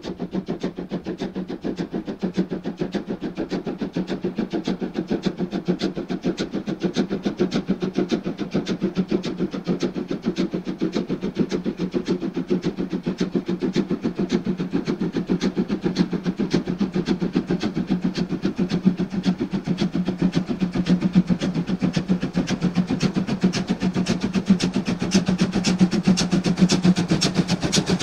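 DB class 50 steam locomotive working hard upgrade at slow speed with a heavy freight train, its exhaust beating in a fast, even rhythm and growing louder as it approaches.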